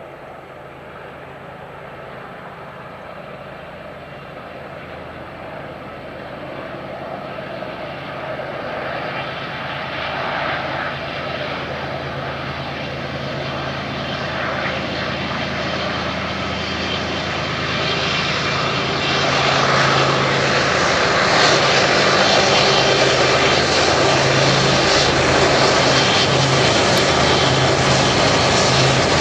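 Diesel freight train approaching: the locomotives' steady engine drone and rolling rail noise grow steadily louder, reaching full loudness about two-thirds of the way in as the train draws alongside.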